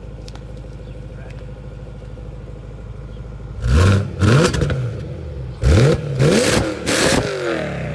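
BMW E92 M3's V8 through an Armytrix valved exhaust with the valves closed: idling steadily, then about five quick throttle blips from about three and a half seconds in, each rev rising sharply and falling back to idle.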